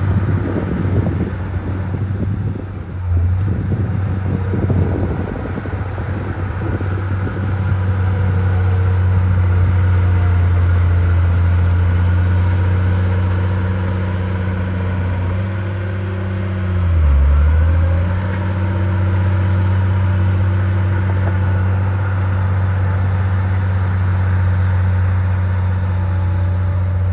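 Heavy diesel engine of earthmoving equipment running hard and steady, with rattling and clattering over it in the first few seconds. About two-thirds of the way through, the engine note drops sharply and comes back up.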